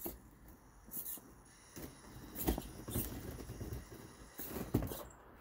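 Axial SCX24 1/24-scale RC crawler climbing a wooden stick ramp: tyres and body knocking and scrabbling against the wood. There are a handful of sharp knocks, and the rattle is busiest in the second half.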